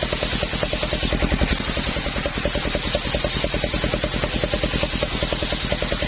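Engine of a homemade circular-saw rig running steadily, with a rapid, even chugging pulse.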